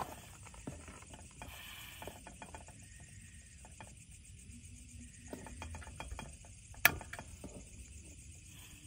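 Light clicks and taps of utensils being handled around a steel wok on a portable gas stove, with one sharp, loud click about seven seconds in.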